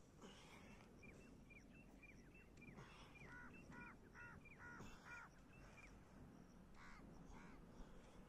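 Birds calling faintly: a quick run of short, high calls, then a louder series of about seven harsher calls at roughly three a second, and two more near the end.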